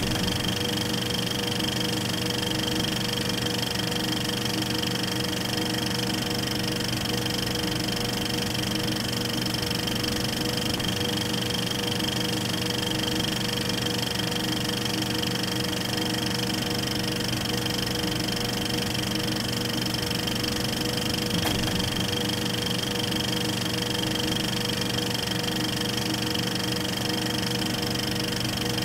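Steady, unchanging hum with several fixed pitches held throughout, with one faint click about two-thirds of the way through.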